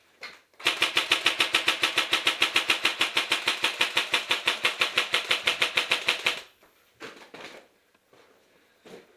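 Airsoft gun firing one long full-auto burst of about six seconds, a rapid even rattle of about eight shots a second, then a few short knocks.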